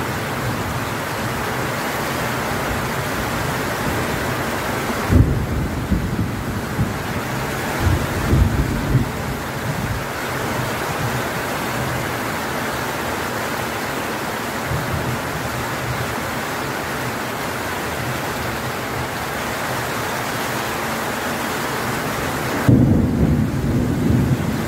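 Heavy downpour, a steady hiss of rain, with thunder rumbling about five seconds in for several seconds and again near the end.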